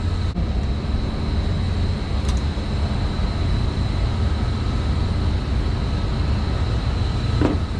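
Steady low drone of running rooftop HVAC equipment, with a faint, constant high-pitched whine over it.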